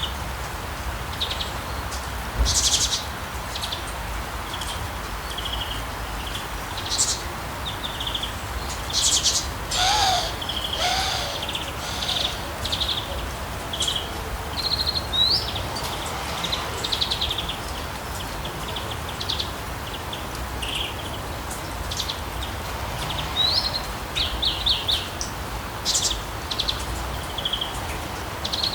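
Songbirds chirping and twittering in short, frequent calls over a steady hiss of rain, with two louder, lower calls about ten and eleven seconds in.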